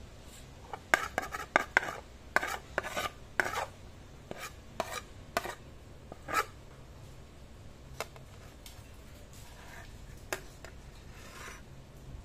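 Metal spoon clinking and scraping against a plate: a quick run of sharp clicks over the first half, then a few scattered clinks.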